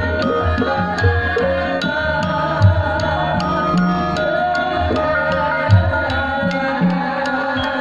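Javanese gamelan music accompanying a shadow-puppet play: sustained ringing notes from the bronze metallophones and gongs, with deep hand-drum strokes about once a second over a quick, even clicking beat.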